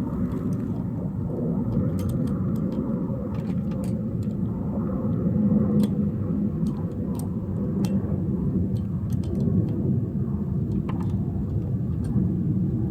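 A steady low rumble, with scattered faint clicks throughout.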